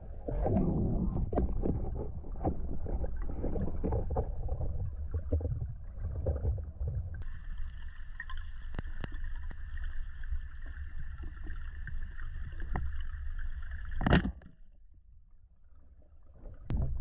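Underwater sound of a spearfisher moving through water with a Salvimar Predathor speargun: low rumbling and small knocks of water against the camera, then a steady high hum joins about seven seconds in. About fourteen seconds in comes one sharp, loud crack as the speargun fires its spear at a tench.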